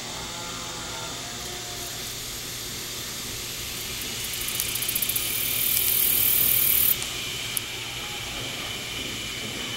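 A cicada's buzz swells from rapid pulsing into a loud, very high drone for about two and a half seconds, then cuts off abruptly. A steady high insect chorus runs underneath.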